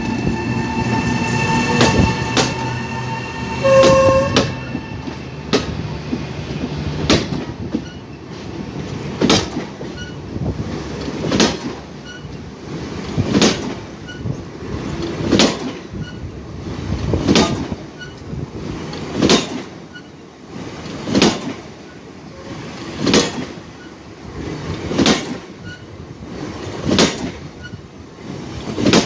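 Passenger train cars rolling past, their wheels clacking over a rail joint at an even beat of about one clack every two seconds. In the first few seconds steady tones from the train run under it, with a short horn tone about four seconds in.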